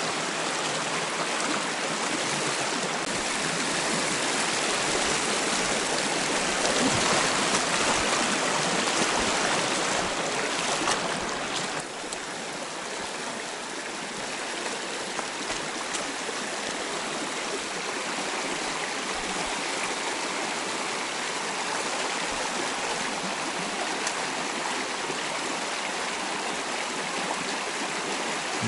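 Small rocky creek running over stones and through shallow riffles: a steady rush of water that eases slightly about twelve seconds in.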